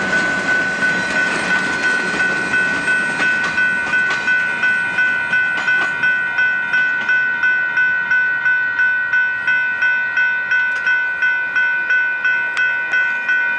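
Railroad grade-crossing bell ringing in a steady, rapid ding-ding-ding, about two to three strokes a second, while freight cars roll past with faint wheel clicks beneath.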